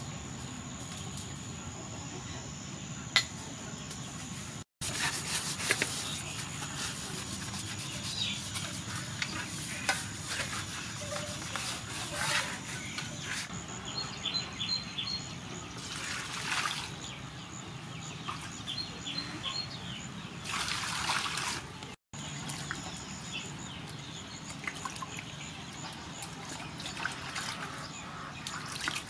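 Hands rubbing a whole catfish with salt in water in a large aluminium basin: irregular wet sloshing, splashing and squelching in short bursts.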